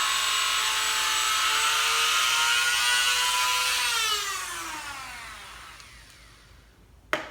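Small Dremel rotary tool running at high speed with a steady high whine, then switched off about four seconds in and spinning down with a falling whine that fades out. A sharp click near the end.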